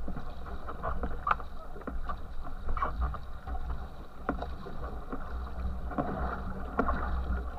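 Water rushing and splashing past the stern of a racing canoe under way, with a low rumble of water and wind on the hull. Sharp splashes from paddle strokes and spray come every second or two.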